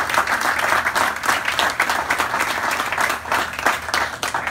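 A small audience of guests applauding: dense hand clapping that thins out near the end.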